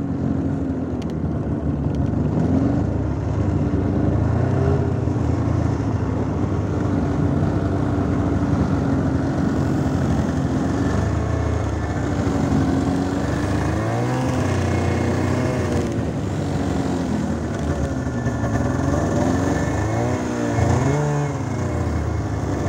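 Snowmobile engine running under way, its pitch rising and falling several times as the throttle changes, most clearly about two-thirds of the way through and again near the end.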